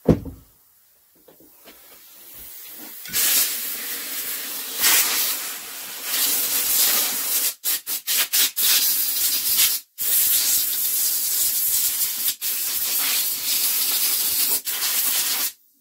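A sharp knock, then a compressed-air blow gun on an airline hissing loudly as it blows dust and crud off a small engine. The blast is cut off and restarted several times in quick succession, then stops.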